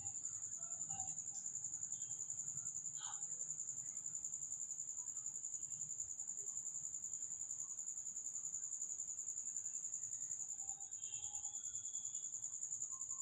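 A cricket chirping in one continuous high-pitched trill, with a faint click about three seconds in.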